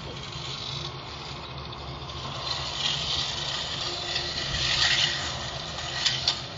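K'nex roller coaster running: a steady motor hum, with a rattling rush that swells in the middle as the train rolls along the plastic track, and two sharp clacks near the end.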